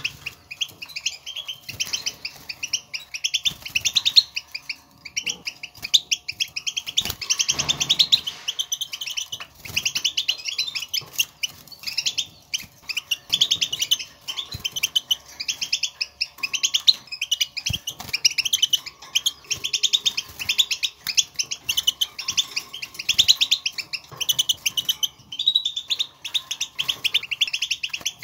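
European goldfinch twittering: rapid runs of short, high chirping contact calls in phrases of a few seconds with brief breaks. This is the call goldfinches use to call to one another, played to stir caged goldfinches into song.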